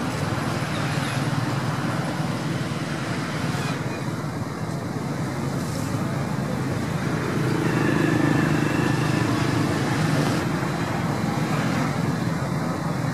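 Steady road traffic noise, swelling a little about eight seconds in as a vehicle passes.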